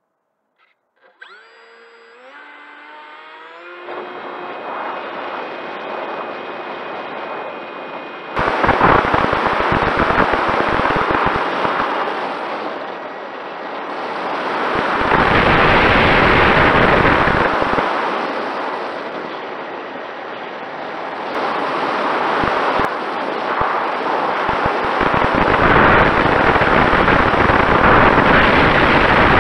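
Mini Talon RC plane's electric motor spooling up with a rising whine, then loud wind rush on the plane's onboard camera in flight. The rush jumps up suddenly about eight seconds in and swells and eases twice, with a faint steady motor tone beneath.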